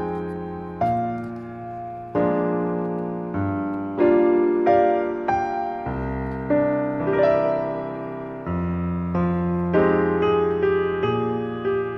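Background piano music: gentle single notes and chords, each struck and then fading.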